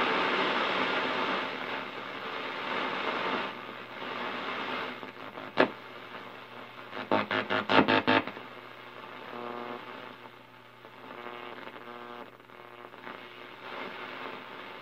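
A 1934 RCA 128 tube radio is being tuned across its shortwave band. Loud static hiss comes from its speaker at first, then a sharp crackle about five and a half seconds in, and a quick run of pulsing interference around seven to eight seconds. After that there is fainter hiss with weak steady tones. No station comes in: the long-wire antenna is picking up interference.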